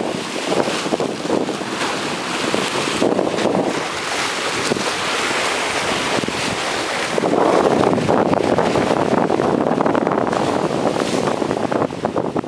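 High-tide waves breaking and washing against a rock seawall, with wind buffeting the microphone. The rush of surf and wind grows louder about halfway through.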